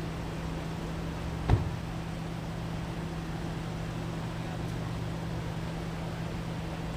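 A steady low mechanical hum over a constant hiss, with a single short sharp knock about a second and a half in.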